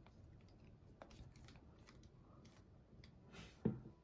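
Faint clicks and rustles of hands handling a plastic fashion doll as a rubber band is worked off its shoulder, then one louder knock near the end as the doll is set down on the table.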